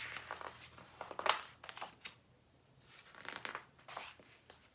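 Paper rustling as picture-book pages are turned, in two spells with a few crisp crackles.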